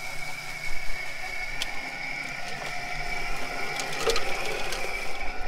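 Electric drum-style chicken plucker running with a steady motor whine while its spinning plate tumbles scalded chickens against the rubber fingers, with a few sharp knocks about four seconds in.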